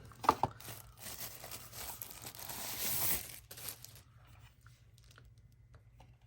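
Packaging being handled, crinkling and rustling for a few seconds, with a couple of sharp clicks just after the start. It dies away to faint handling ticks in the last two seconds.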